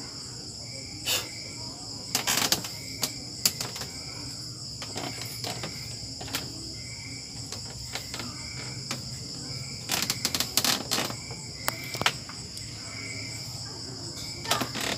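Crickets trilling steadily in the background, with scattered sharp knocks and clatters as a person gets up off a padded workout bench and moves about.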